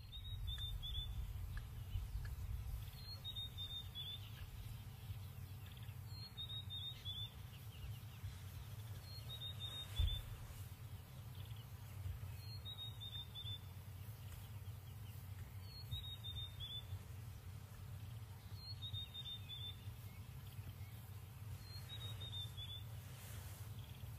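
White-browed scrub robin singing: a short high phrase, one brief upper note followed by a few quick lower notes, repeated about every three seconds, the phrase heard as "here kitty kitty". A steady low rumble runs under it, and a single thump comes about ten seconds in.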